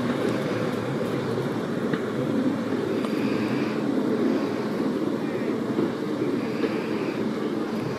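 Small rail-mounted utility vehicle running along the track, its engine a steady low hum as it moves slowly away.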